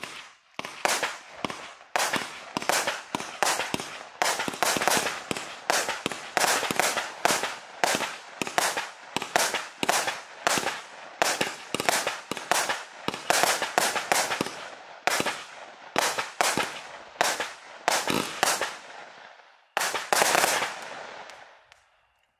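36-shot XQlusif Maïro Gold fireworks cake firing shot after shot, about two sharp bangs a second, each with a short fading tail. Near the end comes a louder, longer final burst that then dies away.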